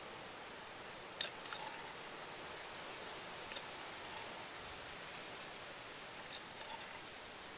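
A metal spoon clinking lightly against a small ceramic bowl and a wooden mortar a few times as dipping sauce is spooned out, over a steady background hiss. The sharpest clink comes about a second in.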